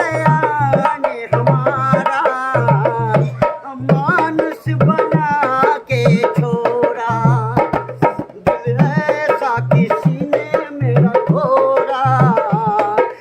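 Naal, a hand-played two-headed barrel drum, beating a steady rhythm of deep strokes, with a wavering melody line over it.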